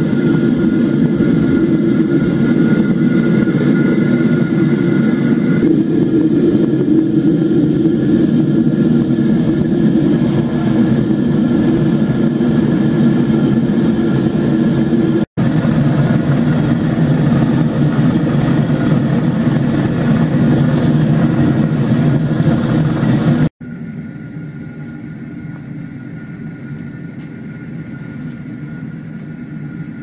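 LPG (propane) burner firing into a homemade gas-cylinder melting furnace: a loud, steady rush of gas flame as the furnace heats for a test melt of aluminium. The sound breaks off for an instant about halfway through, breaks again about three-quarters of the way in, and after that goes on noticeably quieter.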